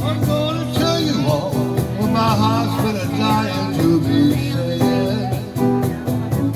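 Live blues band playing an instrumental break between verses: a lead line with bending, wavering notes over a steady bass and regular drum beats.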